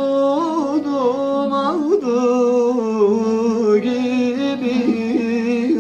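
A man singing a Turkish folk song in long held, wavering melismatic notes, accompanied by a bağlama (long-necked saz).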